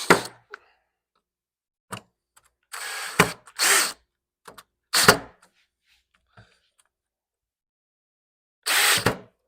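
Cordless drill-driver tightening the Phillips screws of a Corvette roof panel's weatherstrip retainer, run in about five short bursts with pauses between, several bursts ending in a sharp click.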